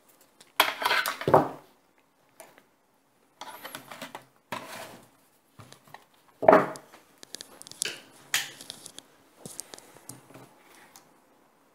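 Pliers working on electrical wire, and small tool and plastic parts being handled on a table. The sound is an irregular run of clicks, clinks and rustles, loudest about a second in and again midway.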